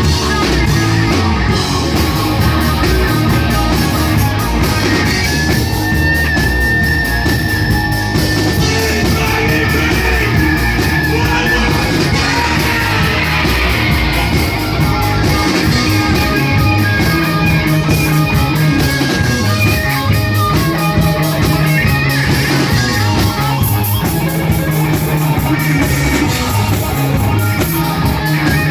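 A live rock band playing loud and steady, with electric guitar, bass and drums. A long high note is held for several seconds about five seconds in.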